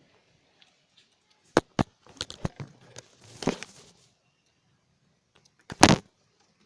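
A few sharp knocks and clicks, a short rustle, then one louder knock near the end.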